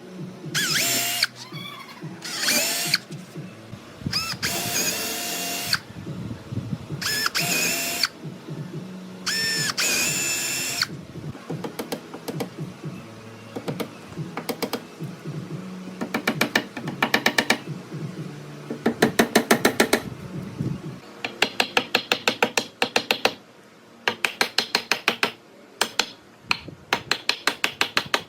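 Power drill driving screws into wood in short runs, the motor whirring and changing pitch as it spins up and slows, then several bursts of rapid, even ticking.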